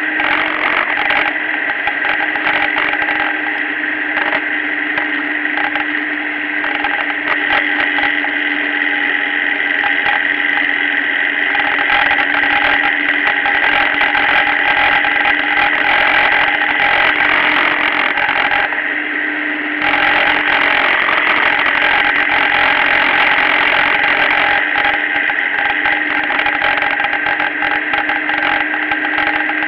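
Motorcycle engine running at steady revs under heavy wind and road rush on a bike-mounted camera, with a few held tones. The rushing hiss drops away for about a second roughly two-thirds of the way through.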